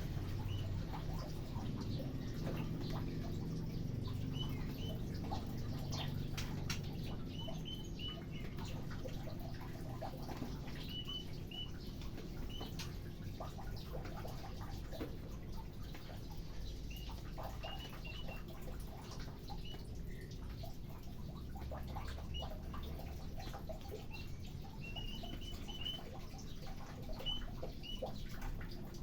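Aviary birds chirping: short, high, upturned chirps, often in quick runs of two to five, over scattered small clicks and a low steady hum.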